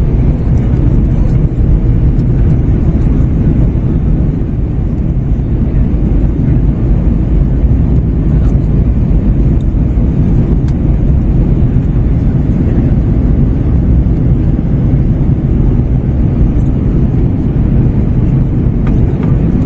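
Airbus A321-111 cabin noise on final approach: the steady, loud drone of the CFM56 engines and the airflow over the airframe, heard from a window seat.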